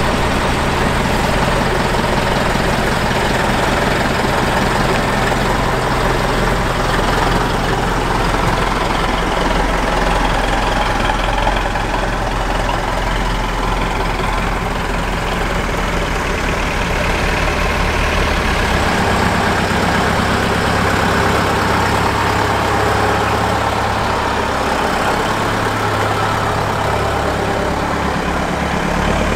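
Old Scania-Vabis truck engine running steadily. Its low drone shifts in pitch a few times, about a quarter of the way in, near two-thirds, and again near the end.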